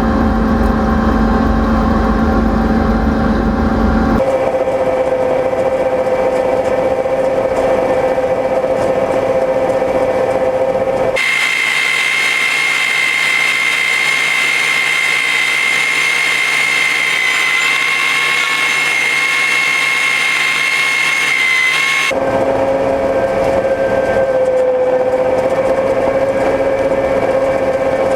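Farm machinery running steadily, heard in several abruptly cut shots. Each shot has a constant hum. The middle one carries a high, steady whine with no low rumble.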